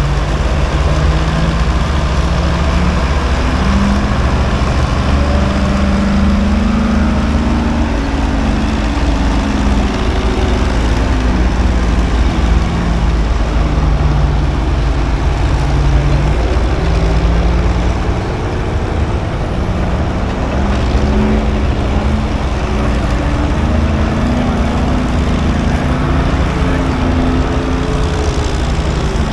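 Large engine of heavy equipment running loudly, its speed stepping up and down repeatedly as the machine is worked.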